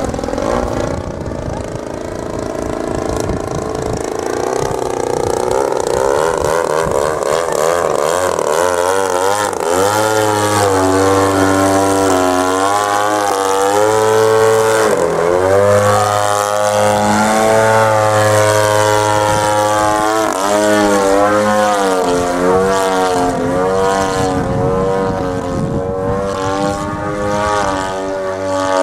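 Radio-controlled HK Slick 540 aerobatic plane flying, its 35cc MLD two-stroke petrol engine and 20x8 propeller rising and falling in pitch as it manoeuvres. Around the middle it hangs in a hover low down, and the note is steadier and loudest there.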